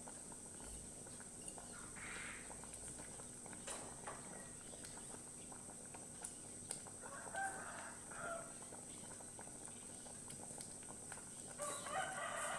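Faint chicken calls: a short call about two seconds in, a longer one around seven to eight seconds, and another near the end.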